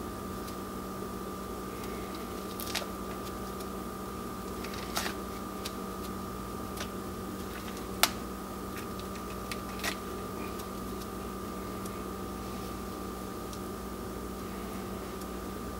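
A steady electrical or appliance hum, one low tone and one higher whine. Over it come a few faint, sharp clicks and ticks as a small quail carcass is handled and its skin is peeled back by hand. The sharpest click comes about halfway through.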